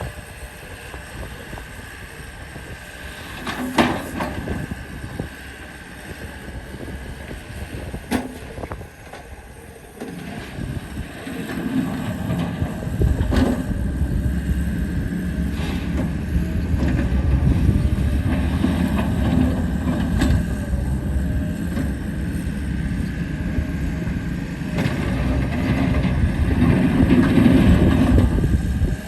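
Gehl 6640 skid steer loader's diesel engine running, getting louder from about a third of the way in as it revs up or takes load, with a steady high whine over it. There are a couple of sharp knocks in the first third.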